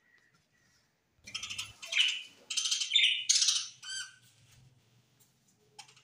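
A flock of budgerigars chirping. After about a second of near quiet, a loud burst of fast, high chirping and warbling runs for about three seconds, then falls back to a few faint chirps.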